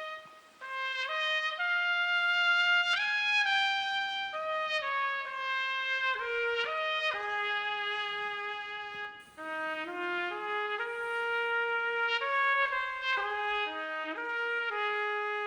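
Background music: a solo melody of held notes, briefly pausing just after the start and again a little past halfway.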